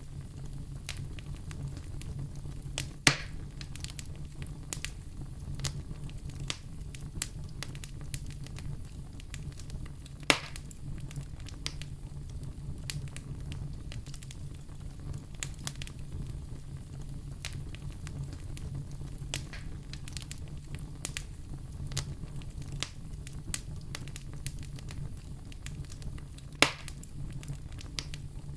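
Fireplace fire crackling, with a steady stream of small snaps and three much louder pops spread through it, over a steady low rumble.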